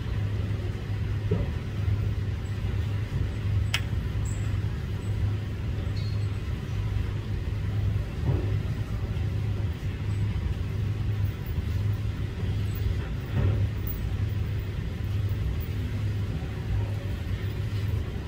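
Steady low mechanical rumble, with a single click about four seconds in.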